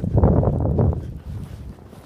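A gust of wind buffeting the microphone in a snowstorm, loudest in the first second and dying away by about a second and a half in.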